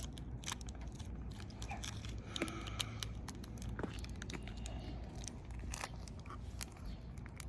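Scattered small clicks, crackles and crinkles of hands handling plastic packaging, typical of opening a slime kit's wrapping and containers.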